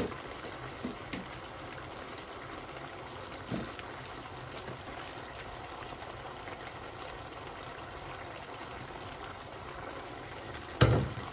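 Chicken and onions sizzling steadily in a deep steel pot on the hob, with a few faint clicks. Near the end comes one sharp knock as the wooden spoon in the pot is taken up.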